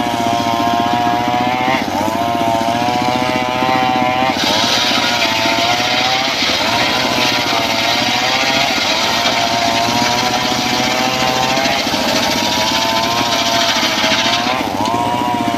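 Engine-driven homemade circular sawbench ripping a long mahogany beam: the engine runs steadily, and from about four seconds in until near the end the blade is in the wood, adding a loud hissing rasp over the engine note.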